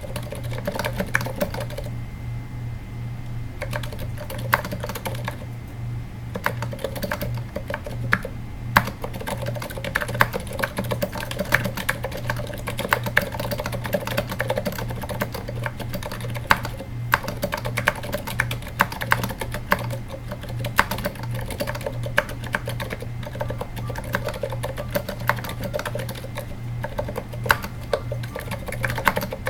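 Continuous typing on a Katana-60 keyboard fitted with 78g Zilents, silenced tactile switches with rubber dampeners on both ends of the slider, under /dev/tty keycaps in an aluminium case: a quick, uneven run of quiet, damped key clicks. A steady low hum sits underneath.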